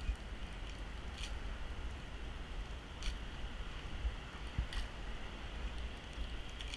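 Wind buffeting the microphone as a low, uneven rumble over a faint hiss, with three faint clicks evenly spaced about two seconds apart.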